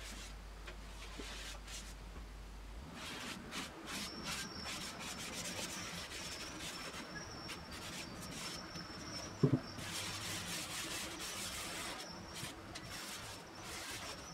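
A tack cloth is rubbed in repeated strokes over the bare wood of an octave mandolin body, wiping off dust before the wood is sealed with shellac. There is one short knock about two thirds of the way in.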